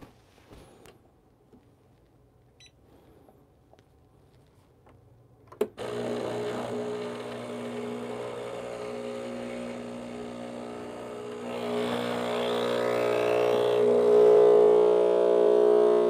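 Breville Barista Express espresso machine brewing: a click about five and a half seconds in, then its vibratory pump starts with a steady hum that grows louder over the second half as the shot pulls.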